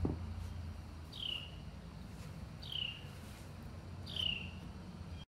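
A bird calling, three short falling whistles about a second and a half apart, over a steady low background hum; a light knock right at the start.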